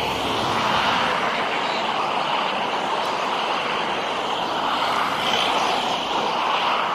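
Airbus A319 jet engines heard steadily as the airliner rolls along the runway after landing, a broad rushing noise with no clear pitch.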